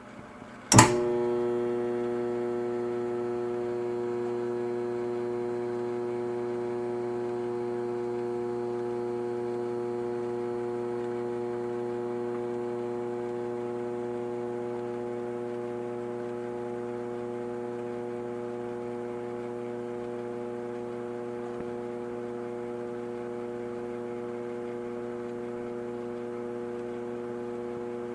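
Dishwasher motor switching on with a sharp click about a second in, then a steady electric hum with several tones, easing off slightly over time.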